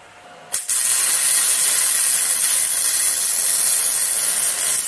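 MIG welder running a bead, a steady loud hiss that starts about half a second in and cuts off at the end. It is welding the mild-steel O2 sensor bungs onto the steel exhaust pipe.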